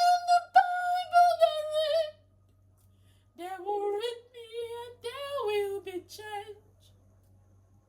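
A woman singing wordless vocal runs without accompaniment: a long held high note, a pause, then a wavering, ornamented phrase, each followed by silence.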